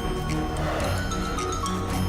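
Background music: a documentary score of held notes with a light, regular beat.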